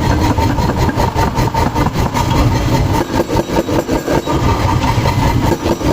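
Heavy hydraulic forging press machinery running steadily, with a fast, even pulsing.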